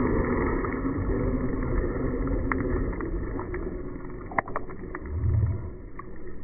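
Traxxas Rustler RC car's electric motor and spinning tyres running steadily, with a few sharp clicks in the middle and a low rumble swelling about five seconds in.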